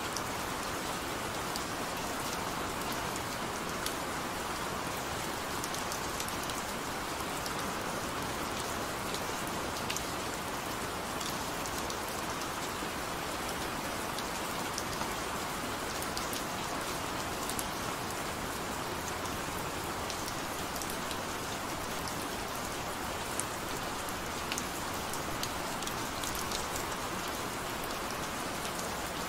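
Gentle rain falling steadily, an even hiss with scattered sharp ticks of single drops.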